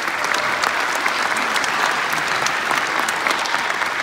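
Audience applauding: dense, steady clapping from a large crowd in a hall.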